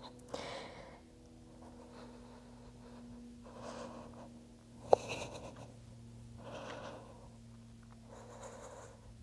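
A woman breathing audibly under exertion, a soft breath about every second and a half, over a faint steady low hum, with one sharp click about halfway through.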